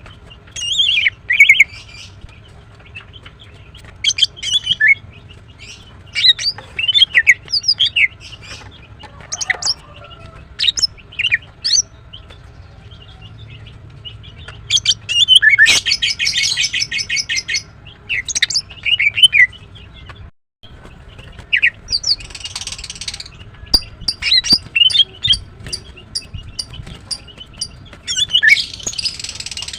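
Female greater green leafbird calling: irregular bursts of short, sharp chirps and swept whistled notes, with a fast rattling run of notes about halfway through. A couple of brief rustling hisses come in the later part, and the audio cuts out for an instant about two-thirds of the way in.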